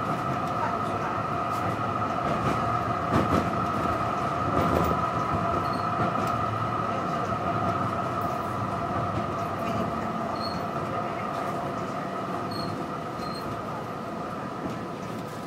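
Tram running along the street, heard from inside the passenger cabin: a steady high whine over running rumble, with a couple of knocks a few seconds in, slowly getting quieter near the end.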